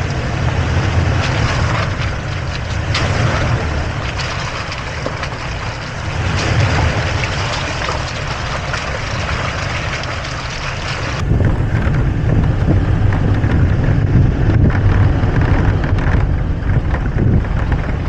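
Toyota Tacoma driving slowly along a muddy, leaf-strewn dirt trail: a crackling hiss of tyre and trail noise over a low engine rumble. About eleven seconds in the sound changes abruptly to a deeper, steadier rumble with wind on the microphone.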